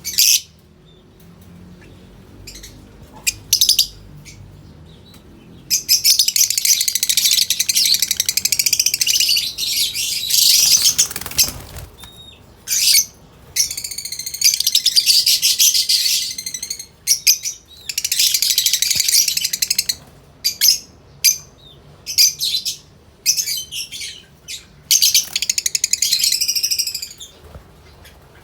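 Lovebirds calling: bouts of rapid, high-pitched chatter several seconds long, broken by short single calls.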